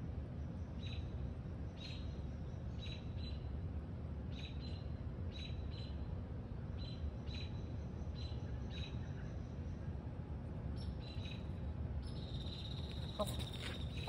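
Baby bird's short, high begging chirps, repeated about once or twice a second and often in pairs, with a pause a little past halfway and a longer held chirp near the end, over a steady low background rumble.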